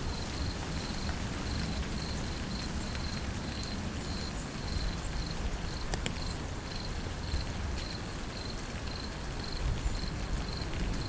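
Steady rainfall, with an insect chirping in a high, even pulse about three times a second.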